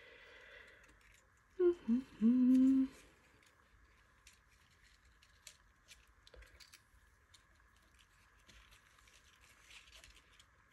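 A woman hums briefly: two short notes and a longer one about two seconds in. Around it are faint soft ticks and rustles of hands working thin nylon yarn and card while tying a bow.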